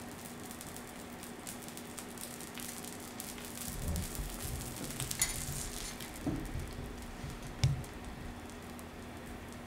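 Food sizzling steadily on a teppanyaki iron griddle, with a few utensil knocks and clinks in the middle, the sharpest about seven and a half seconds in.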